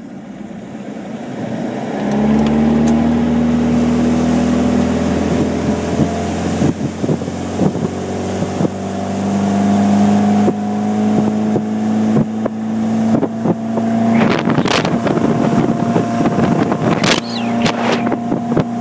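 An old ski boat's engine pulling away: it builds over the first couple of seconds, then settles into a steady drone as the boat runs across the water. Wind buffets the microphone throughout, with two brief sharp bursts of noise late on.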